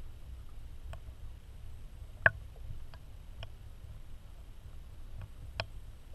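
Muffled low rumble of water heard through a GoPro's housing underwater, with about six irregular sharp clicks; the loudest comes a little over two seconds in.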